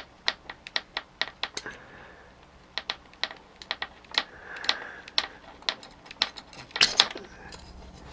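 Pliers clicking and tapping against a small plastic gear, its steel shaft and the sheet-metal bracket of the Robotic Banker toy's gear train as the gear is worked off the shaft. The sharp little clicks come irregularly, a few a second, with a cluster of louder ones near the end.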